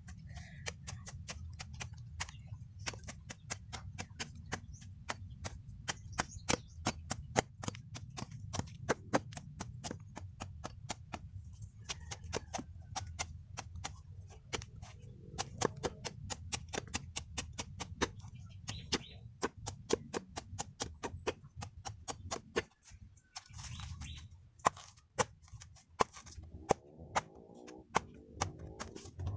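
Machete chopping and paring a banana sucker's corm: quick, irregular blade strikes, several a second, with a short lull about two-thirds through. The cuts are trimming away roots and leaf sheaths to prepare the corm for macro-propagation. A steady low rumble runs beneath.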